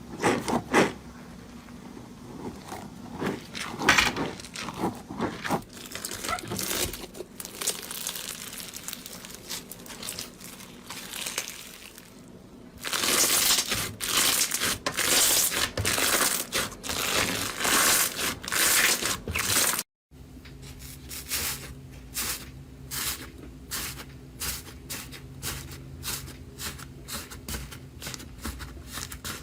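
Slime being squeezed and worked by hand, giving dense crackling, crinkly squishing, loudest just before a short break. After the break come rapid, regular sharp clicks and pops.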